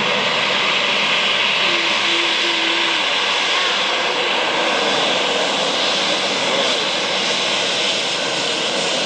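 Jet airliner engines running with a steady, loud rushing hiss that holds at a constant level.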